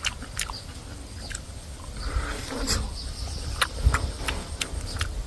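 Close-up chewing of crunchy guava fruit: irregular crisp clicks and wet mouth smacks.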